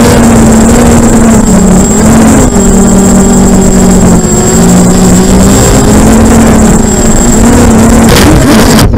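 FPV quadcopter's motors and propellers, heard through its onboard camera, buzzing loudly with a hum that steps up and down in pitch as the throttle changes. Near the end the quad hits the branches of a birch tree with a couple of sharp knocks.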